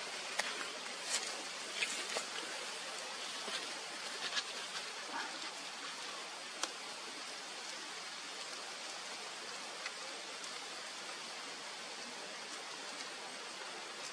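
Steady hiss of background noise, with a few faint short clicks and high ticks in the first five seconds.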